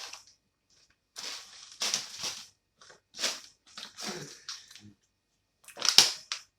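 Close-up crunching and chewing of crispy fried food, in irregular bites about once a second, the loudest crunch near the end.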